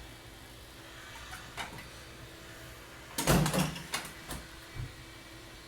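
Tools and parts being handled at a motorcycle oil change: a few light clicks, then a loud scraping clunk about three seconds in.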